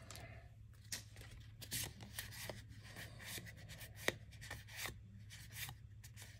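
Magic: The Gathering trading cards slid and flicked against each other as a freshly opened booster pack is thumbed through by hand: faint rubbing and light card snaps, with one sharper click about four seconds in.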